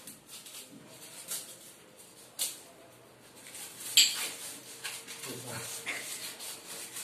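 Small metal pooja items set down on a tiled floor: a few soft taps, then one sharp metallic clink about four seconds in with a brief ring.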